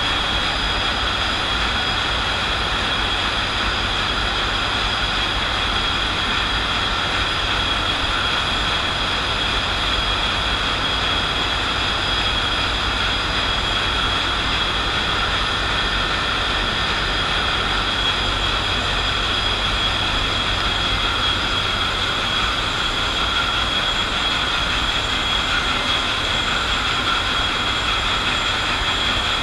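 Ship's B&W two-stroke main engine running steadily at about 51 RPM, heard close beside its turbocharger: an even, loud machinery noise with a steady high whine over a low rumble.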